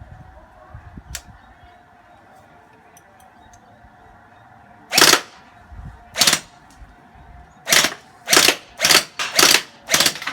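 Electric gel blaster firing single shots in semi-auto: each trigger pull gives a short, sharp shot. After about five seconds of quiet come two shots about a second apart, then a quicker run of five at about two a second.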